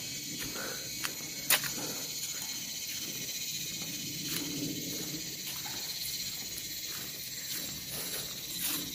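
Steady, high insect chorus of forest cicadas and crickets, with footsteps scuffing along a dirt path and one sharp click about a second and a half in.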